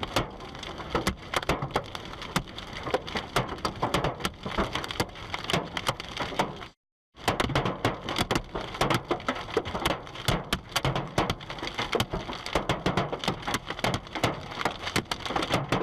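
Hailstones pelting down in a dense, irregular clatter of hard impacts, with a moment of complete silence about seven seconds in before the clatter picks up again.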